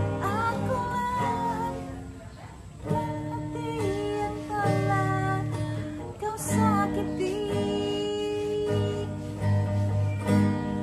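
Acoustic guitar strummed and picked in chords, with a woman's voice singing along in gliding phrases that ease off briefly about two seconds in.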